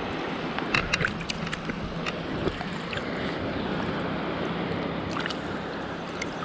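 Steady rush of river current around a wader standing in the stream, with a few light clicks and taps over it.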